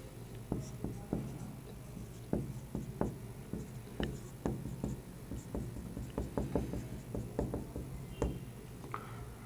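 Marker pen writing on a whiteboard: a string of small, irregular taps and strokes as letters are written.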